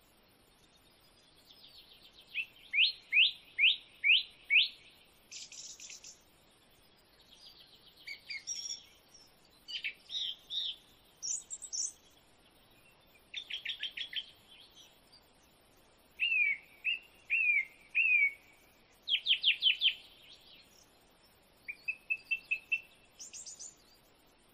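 A bird singing a string of short, varied phrases of quick, high chirps, a new phrase every second or two.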